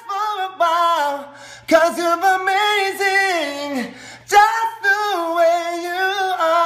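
A man singing unaccompanied in a high voice, drawing out long held notes with vibrato.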